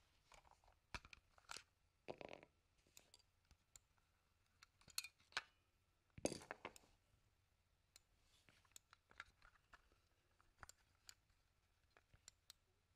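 Small plastic clicks, snaps and scrapes from a Logitech wireless mouse being handled, as its battery cover is pried off and the shell is turned over in the hands. The two longest scrapes come about two seconds in and just after six seconds.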